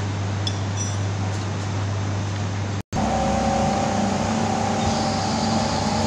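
Steady hum of Girbau commercial washer-extractors running in a laundry room, with a low drone. It cuts off abruptly about three seconds in and gives way to a different steady machine hum with a higher whine.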